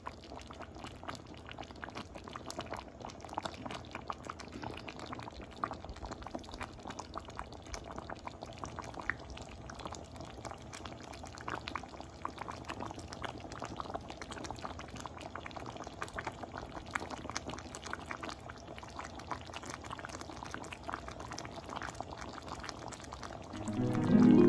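Blue crab and coconut-milk sauce bubbling in a pan, a steady run of small pops and crackles. Plucked-string music starts loudly near the end.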